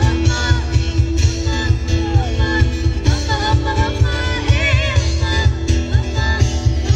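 Live band heard through a PA: a woman singing over acoustic guitar and a steady drum beat, with a wavering held note about two-thirds of the way through.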